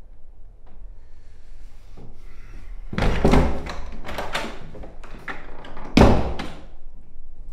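A door being handled and opened, a cluster of knocks and rattles about three seconds in, then slammed shut with one loud bang about six seconds in, the loudest sound.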